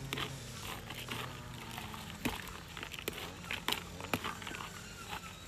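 Plastic scoop stirring a bucket of particle bait (corn and small seeds), the grains rattling and scraping against the plastic, with irregular sharp clicks.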